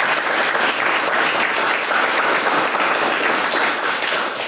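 Audience applauding, a dense steady spread of clapping that fades out near the end.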